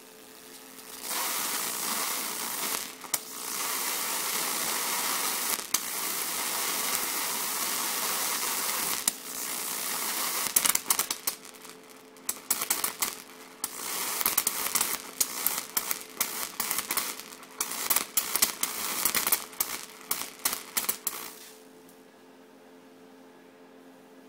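High-voltage arc from a five-stage mains-frequency voltage multiplier, fed by a 14.4 kV pole transformer at half output through a 7 megohm ballast resistor. A loud, steady hiss of a sustained arc runs for about eight seconds, broken by a few brief drop-outs. It then turns into sputtering crackles and snaps for about ten seconds before cutting off suddenly.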